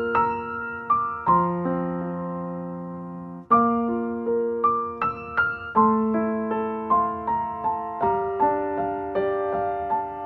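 Background music: a gentle piano or electric-piano melody, notes struck and left to ring, with a brief break about three and a half seconds in.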